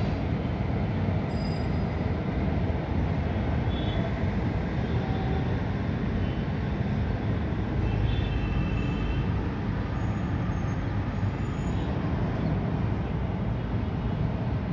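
Steady low rumbling background noise, with a few faint short high-pitched tones about four and eight seconds in.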